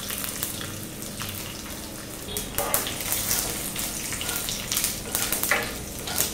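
Mustard seeds, curry leaves and dried red chillies sizzling in hot coconut oil in a non-stick pan, with small crackles. From about two and a half seconds in, a spatula stirs and scrapes them around the pan.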